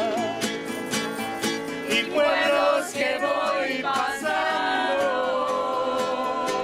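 A small group of women and a man singing a song together in unison, with a strummed acoustic guitar keeping a steady rhythm.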